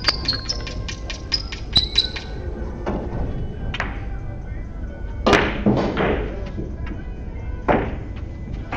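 Russian pyramid billiards: a cue strikes the ball and hard billiard balls click together, the loudest knock about halfway through followed by balls rolling, with a quick run of sharp clicks at the start and another knock near the end.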